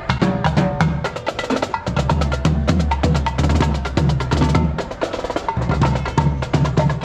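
Upbeat music with busy percussion: quick wood-block-like clicks over a steady beat and pitched tones.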